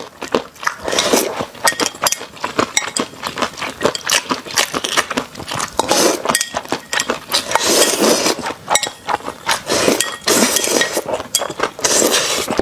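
Close-up eating sounds: noodles slurped in several bursts and chewed, with chopsticks clicking against a bowl.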